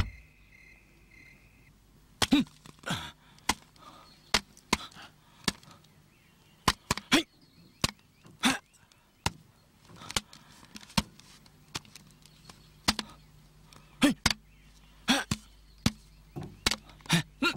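A long irregular run of sharp whacks and slaps, about one or two a second: bare-handed strikes and blocks in Bokator martial-arts training.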